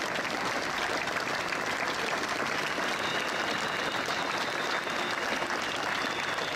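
Large crowd applauding steadily, a dense, even clapping throughout.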